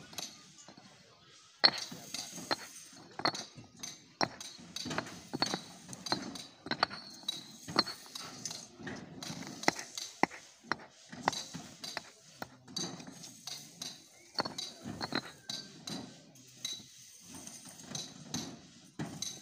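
Concrete paving blocks clicking and clinking against one another as they are picked up and set in place by hand. The knocks are sharp and irregular, often several a second.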